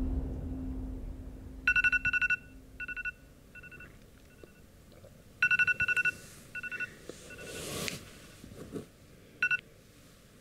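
Electronic telephone ringing in three trilling rings, the first two trailing off in fading echoes. A low hum fades out at the start.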